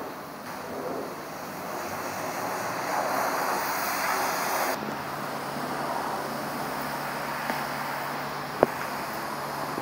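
High-pressure wash wand spraying water in a self-service car wash bay: a steady hiss. About halfway through a steady low hum comes in, and there is one sharp click near the end.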